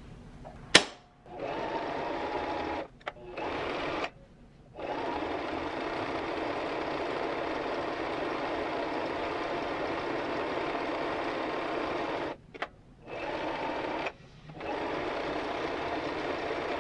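Singer M1500 sewing machine stitching fabric in several runs of a few seconds each, stopping and starting again with short pauses in between. A sharp click comes about a second in.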